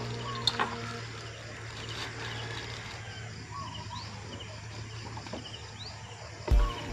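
Outdoor ambience with short, high, rising bird chirps repeating every second or so. Background music ends about a second in, and a low thump comes near the end.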